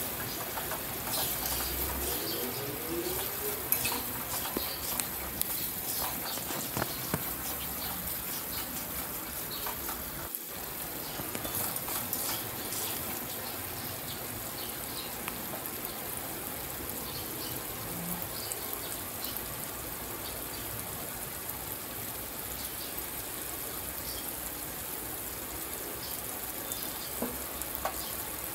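Ground spice paste frying in hot oil in a wok: a steady sizzle with scattered crackles and pops, stirred with a metal spatula at first.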